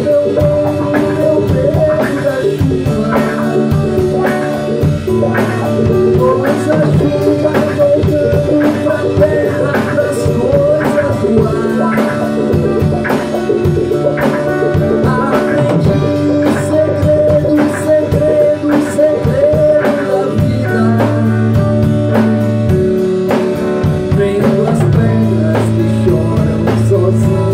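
Band music with drum kit, guitar and singing, a steady beat throughout.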